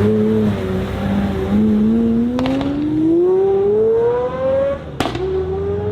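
Supercar engine accelerating hard, its pitch climbing steadily. Near the end there is a sharp crack, the pitch drops at an upshift, then it climbs again.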